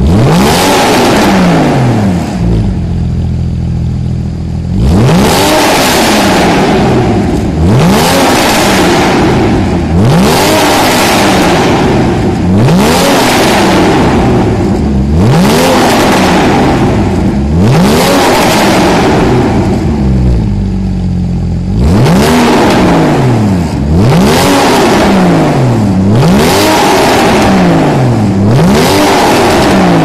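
Porsche 981 Boxster S flat-six with an Armytrix aftermarket exhaust being revved over and over: sharp blips that each climb and drop in pitch, about one every two seconds. The engine settles briefly to idle twice, about two seconds in and again around twenty seconds in.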